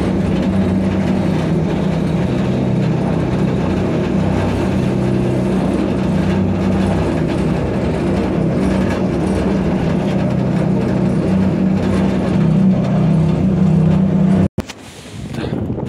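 Container crane's service lift running as it climbs, a loud, steady mechanical hum that cuts off suddenly near the end.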